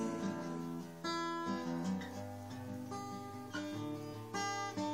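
Guitar being strummed, ringing chords that change every second or so, with no voice.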